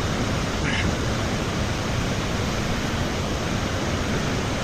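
Steady rush of fast-flowing river water and waterfall.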